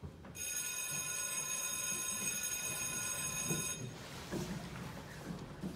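A bell rings steadily for about three and a half seconds and cuts off abruptly, followed by irregular low thuds and scrapes of cardboard boxes being picked up and moved across a wooden stage.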